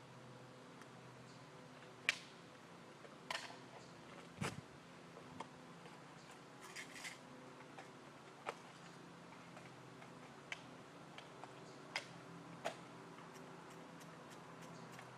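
About ten sharp clicks and taps at irregular intervals over a faint steady hum, the loudest about two seconds in.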